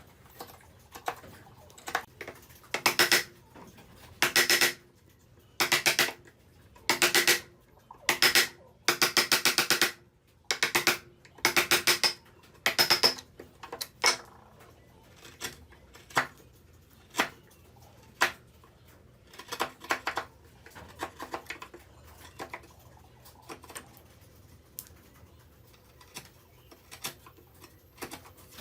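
A hand tool rasping through wood in short, separate strokes, each about half a second long. The strokes are loud in the first half, then turn fainter and sparser with light ticks.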